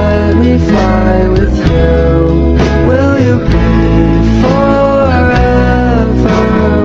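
Music: a song with a sung vocal line over guitar and heavy bass.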